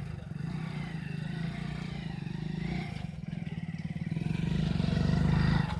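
An engine running steadily nearby in a low, rapid pulsing rumble, growing louder toward the end and then dropping away suddenly.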